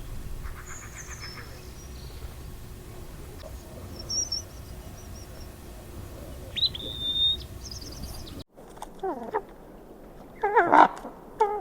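Wild birds calling in wind: scattered short high chirps and a brief trill over a steady wind rumble. After an abrupt cut, three loud calls that fall sharply in pitch, each a slurred whistle.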